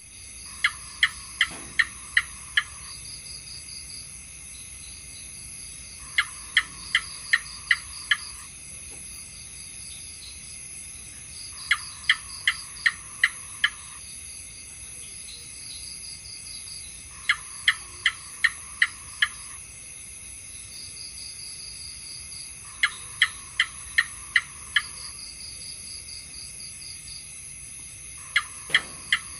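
House gecko calling: a bout of about six sharp chirps, two or three a second, repeated every five to six seconds, over a steady high-pitched background hiss.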